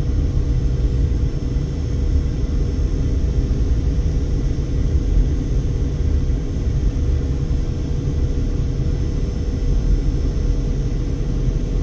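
Steady low rumble of a Mercedes-Benz car driving slowly, heard from inside the cabin, with a faint steady hum above it.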